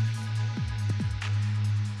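Electronic music with a deep, sustained bass line and several booming drum hits that drop in pitch.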